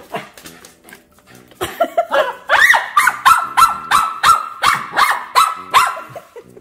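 A dog's squeaky toy squeaked over and over as a small dog chews it. The squeaks come in quick succession, about three a second, starting about a second and a half in.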